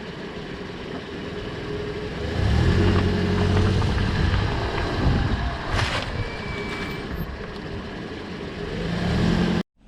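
Car being driven: engine and road noise, getting louder about two and a half seconds in, with a faint brief high tone near the middle. The sound cuts off abruptly just before the end.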